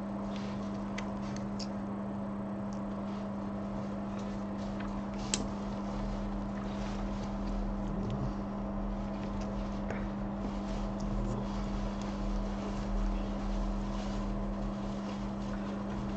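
Steady low electrical hum, with scattered faint clicks and one sharper click about five seconds in.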